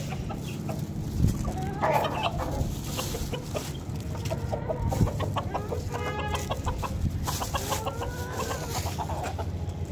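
Hens clucking in short calls, several times over, with a couple of sharp knocks in between.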